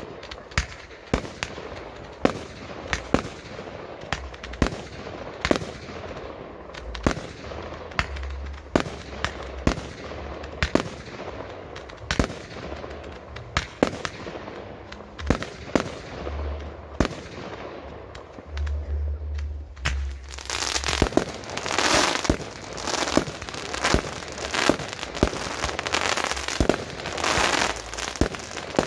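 Fireworks display: mortar-fired aerial shells bursting in a steady run of sharp bangs, one or two a second. About two-thirds of the way in, dense crackling breaks out alongside the bangs.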